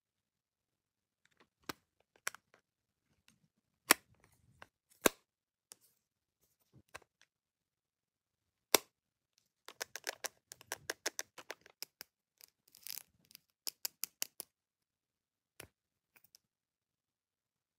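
Sharp plastic clicks and taps from handling a pressed-powder compact and a lipstick tube: a few single clicks spread apart, then a quick run of clicking and tapping for about five seconds, and a last couple of clicks near the end.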